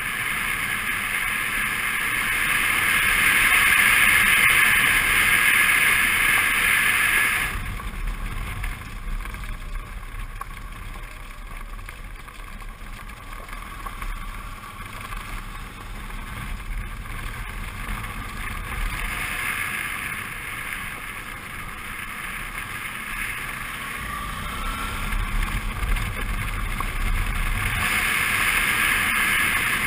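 Suzuki V-Strom 650's V-twin engine running as the motorcycle rides a dirt road, with rushing wind noise on the microphone. The hiss is loud at first, drops away suddenly a quarter of the way in, and comes back near the end.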